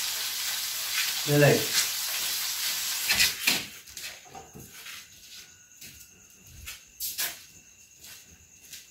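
Chicken kebab sizzling in a frying pan on a gas stove, with a brief voice sound about a second and a half in. About three and a half seconds in the sizzling cuts off, leaving faint steady insect chirping and a few light clicks.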